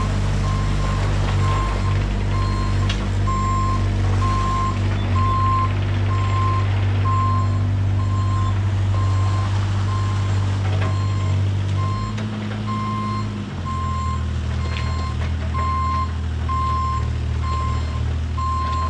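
Bobcat E32 mini excavator tracking, its travel alarm beeping about once a second over the steady running of its diesel engine. The engine note drops about two-thirds of the way through.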